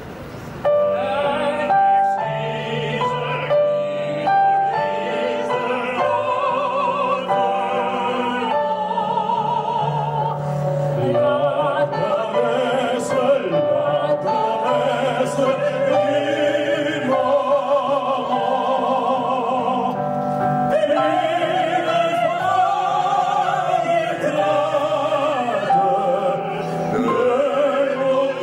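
A woman singing in operatic style with wide vibrato into a handheld microphone, over a sustained instrumental accompaniment.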